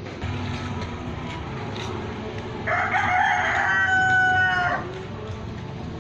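A rooster crowing once: a single long call of about two seconds in the middle, over steady low background noise.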